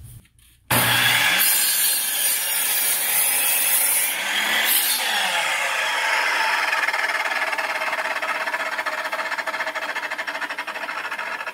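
Electric miter saw starting suddenly about a second in and cutting through 2x4 pine lumber during the first few seconds, then running on free and slowly quieting toward the end.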